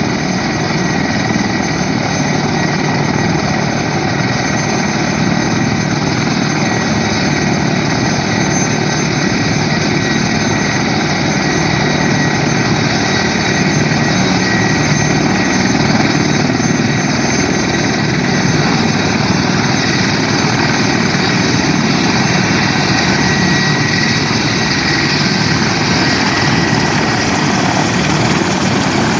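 Mil Mi-35 attack helicopters taxiing, their twin turboshaft engines and turning main rotors running loud and steady, with a high turbine whine over the rotor noise.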